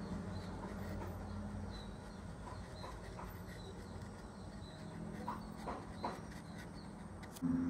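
Soft ambient background music with sustained, singing-bowl-like tones that fade out at the start, a quiet stretch with a few soft clicks, then a new sustained chord coming in sharply near the end.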